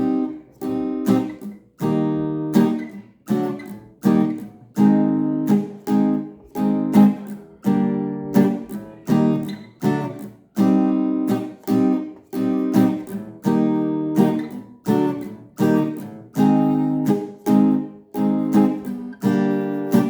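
Acoustic guitar strummed in a steady rhythm, about two strokes a second, through the introduction's chord progression in C minor. Many of the chords are cut off short.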